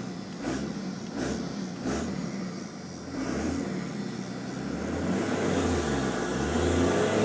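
Straight-piped 24-valve Cummins 5.9 litre inline-six turbo diesel in a 2001 Dodge Ram dually accelerating hard from a standstill, getting louder toward the end with a rising hiss and turbo whine. A few short knocks sound in the first two seconds.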